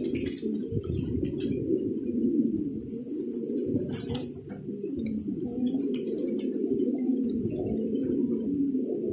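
A flock of domestic fancy pigeons cooing continuously, many low coos overlapping into a steady chorus.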